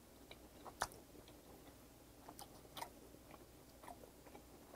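Faint mouth sounds of a man chewing soy-marinated raw salmon: a few soft, wet smacks and clicks, the sharpest a little under a second in.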